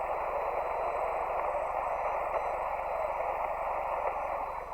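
Steady static hiss of 40-metre band noise through a single-sideband receiver's narrow audio passband, with no signal on frequency; it eases slightly near the end.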